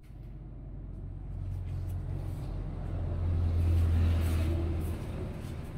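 A motor vehicle's engine hum that grows louder over about four seconds, then falls away as it passes by.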